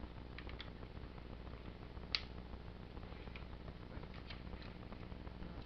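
Small plastic clicks as the panels and joints of a plastic Stronghold ST1 mech toy are worked by hand, with one sharper click about two seconds in. A faint steady low hum runs underneath.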